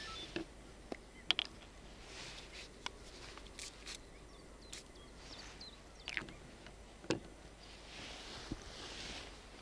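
Quiet outdoor background with scattered small clicks and knocks, about a dozen, and two soft swells of hiss.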